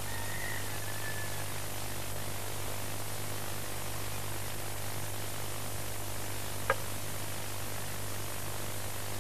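Steady hiss and low hum of an old, worn recording, with no other sound in it; a faint brief whistle near the start and one sharp click about seven seconds in.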